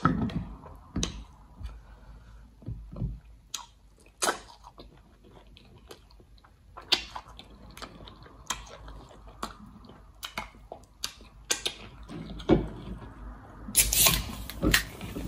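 Wet chewing, lip smacks and finger sucking as soft egusi soup is eaten by hand, heard as scattered short, sharp clicks. Near the end a drink can is handled and its pull-tab opened with a crack and fizz.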